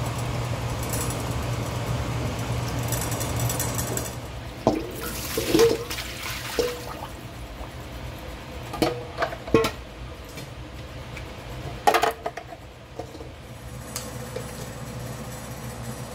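Water sloshing as grape leaves are swished by hand in a steel pot of water, over a steady low hum. This gives way to a scatter of sharp knocks and clinks of kitchenware from about a third of the way in, the last of them near the end.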